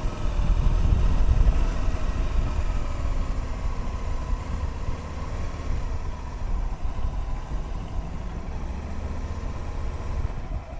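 Aprilia ETV1000 Caponord's V-twin engine running as the bike rides slowly along a narrow road, with a heavy low rumble of wind on the microphone. It is loudest for the first couple of seconds, then steadier.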